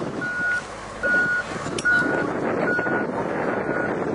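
A vehicle's reversing alarm beeping at an even pace, a little more than one short single-pitch beep a second, five beeps in all, over steady background noise.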